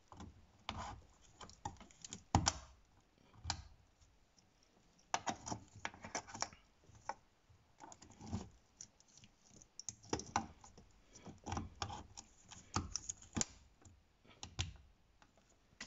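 Irregular plastic clicks and rustling as a wiring connector and its loose wires are handled and pushed onto a car power-window motor.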